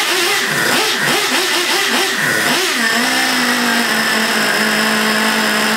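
Small nitro engine of an RC monster truck running just after being started with an electric starter: it revs up and down unevenly for the first two to three seconds, then settles into a steady idle.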